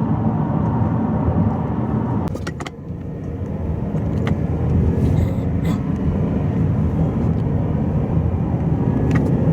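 Car driving at speed, a steady rumble of road and wind noise from inside, with a few brief clicks and knocks.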